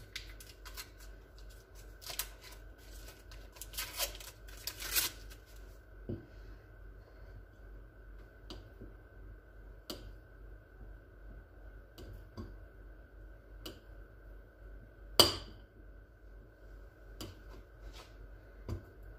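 Paper butter wrapper crinkling as a stick of butter is unwrapped and handled, followed by scattered light clicks and knocks, with one sharp click about fifteen seconds in.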